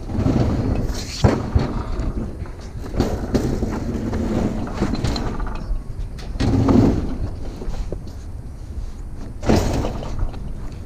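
A discarded refrigerator being lifted and pushed onto a trailer by hand: irregular bumps, scrapes and knocks, with a sharp knock about a second in and heavier bumps later.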